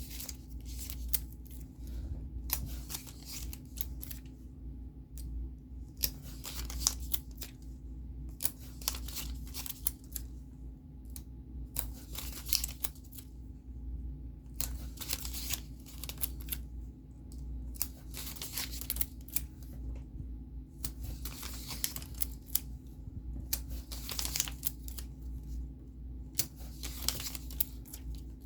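Paper being cut and handled: short rustling, snipping strokes with clicks every second or two, over a steady low hum.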